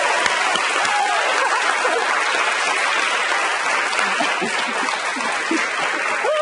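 Studio audience applauding steadily throughout.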